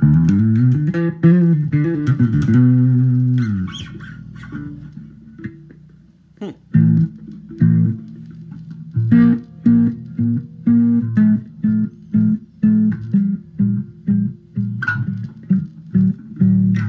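Harley Benton B550 five-string fretless bass guitar, strung with round-wound strings, being played. It slides between notes for the first few seconds, then after a quieter moment settles into a steady line of repeated plucked notes, about two a second.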